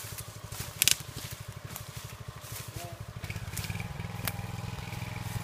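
Small engine on a horse-drawn log-loading trailer, running steadily to drive the crane's hydraulics, with a rapid low pulse that grows a little fuller about four seconds in. A sharp knock sounds about a second in.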